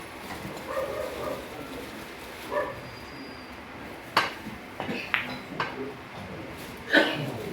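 A dog barks twice, then billiard balls click sharply several times, the loudest strike near the end.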